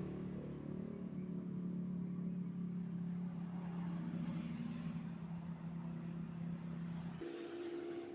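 Mini two-stroke engine built from a refrigerator compressor, exhausting through an expansion chamber made of rubber radiator hose, running at a steady speed that sags slightly. About seven seconds in the low engine note cuts off suddenly and a higher steady hum remains.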